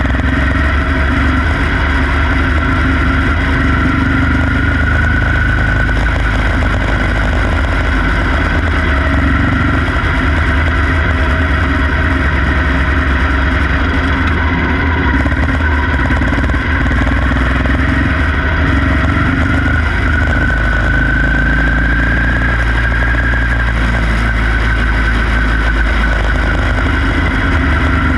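Quarter midget race car's small engine running hard, heard from on board the car, its pitch rising twice as it accelerates.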